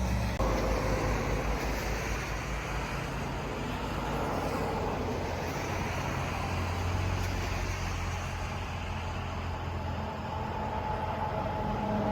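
Road traffic on a highway: the steady rumble and tyre noise of passing vehicles, slowly swelling and fading.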